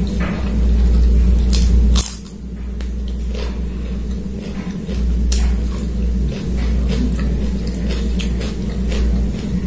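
Wet squishing of rice and chicken curry mixed by hand on a plate, with chewing and many short, sharp mouth clicks, over a steady low hum.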